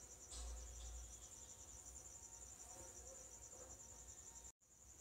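Near silence with a faint, steady, high-pitched trill running through the background. A brief low rumble comes about half a second in, and the sound cuts to dead silence for a moment near the end.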